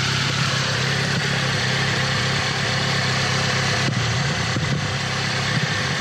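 Turbocharged 4A-GE four-cylinder engine of a Toyota AE86 idling steadily, heard close with the hood open, with a couple of light clicks near the middle.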